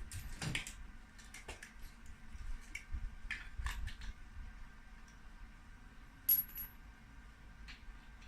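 Scattered light metallic clinks and knocks of tools and steel being handled, with one sharp high-pitched clink a little past six seconds in.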